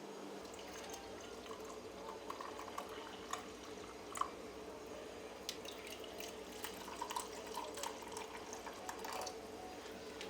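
Water dripping, a scatter of small drips and light clicks over a steady low hum. The drips start about a second and a half in and stop about a second before the end.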